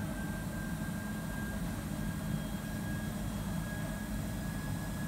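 Steady background drone of a commercial kitchen's fans and machinery: a low hum with a thin, steady high whine over it.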